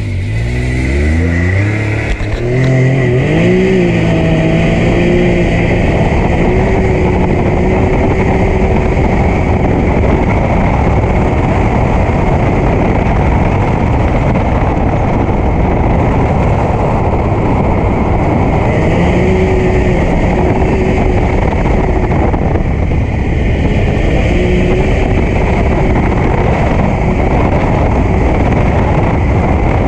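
Can-Am Maverick X3 side-by-side's turbocharged three-cylinder Rotax engine pulling away, its pitch climbing over the first few seconds as it accelerates. It then runs steadily at speed along a dirt track, with a few brief dips and rises in revs in the second half, under a constant rush of driving noise.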